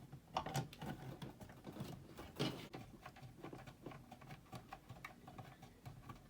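Computer keyboard being typed on: a quick, irregular run of key clicks, with one louder tap about two and a half seconds in.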